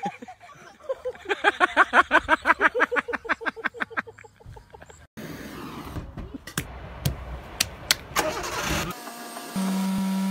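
A rapid string of short pitched sounds, about eight a second, then a truck engine running with scattered sharp clicks. A steady low musical tone comes in near the end.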